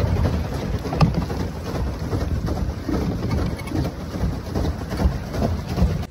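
Water splashing and churning close by, a loud steady crackling rush that cuts off suddenly near the end.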